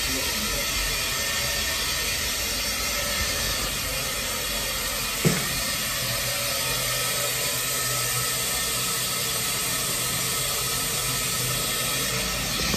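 Steady hiss of dental equipment running during treatment in the chair, with one sharp click about five seconds in.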